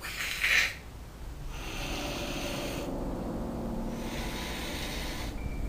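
White cat hissing and growling defensively: a short sharp hiss about half a second in, then a long hiss with a low growl under it for several seconds.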